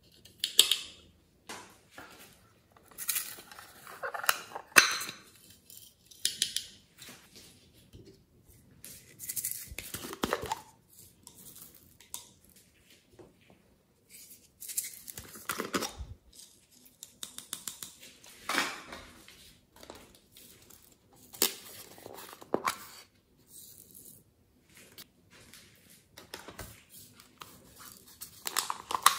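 Small plastic toy containers handled by hand: irregular clicks, taps and rustles as lids are popped open and the containers are turned and emptied.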